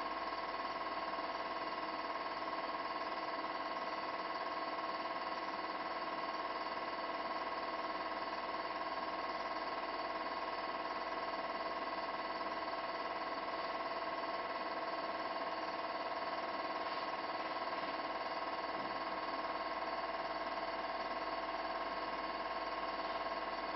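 A steady, unchanging hum or whine made of several held tones, with no voices over it.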